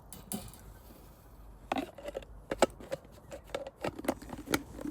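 A scatter of light clicks and knocks, about a dozen over two or three seconds, from pieces of meat being laid out over hot coals for grilling.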